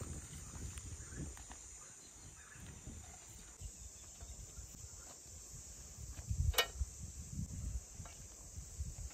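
Steady high chirring of insects in the summer field, with low rustling and one sharp click about two-thirds of the way through.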